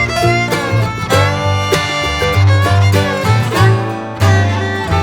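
Instrumental background music with a steady, repeating bass line under string-instrument melody.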